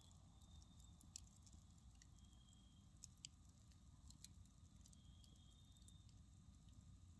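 Faint crackling of a wood campfire: scattered small pops about once a second over a low, steady rumble.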